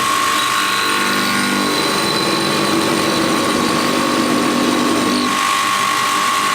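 Crusher-knife sharpening machine running steadily with a high whine over a broad grinding hiss, its lower tones shifting about two seconds in and again near the end.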